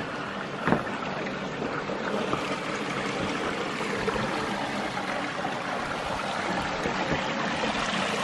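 Shallow creek water flowing and trickling over rocks, a steady rush that grows a little louder toward the end. A single sharp knock comes about a second in.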